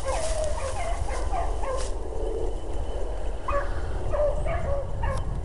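A pack of beagles baying while running a rabbit: short, overlapping, pitch-bending cries from several hounds on the trail, over a low steady rumble. A few sharp clicks come near the end.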